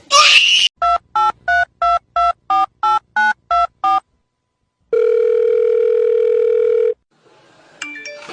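A short whoosh, then ten quick telephone keypad tones, about three a second, as a number is dialed, followed by a steady tone lasting about two seconds.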